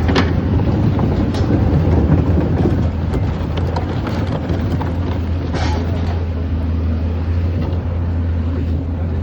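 A vehicle engine running steadily with a low rumble, with scattered clicks and knocks over it.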